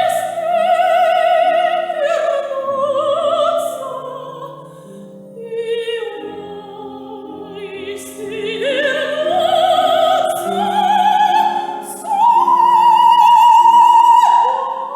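Operatic soprano singing with vibrato over piano accompaniment, the line softening about five seconds in and then climbing to a long high held note near the end.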